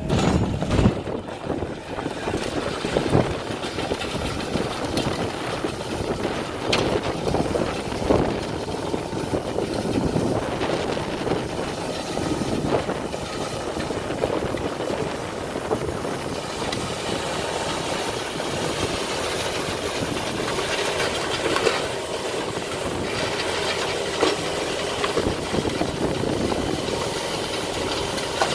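Volvo L35GT wheel loader's diesel engine running under load while its Tokvam snowblower attachment cuts into a snowbank and throws snow high out of its chute: a steady machine noise with occasional short knocks.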